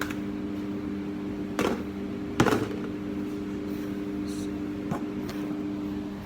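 A steady low electrical hum, with a few short knocks or clicks over it, the loudest about two and a half seconds in.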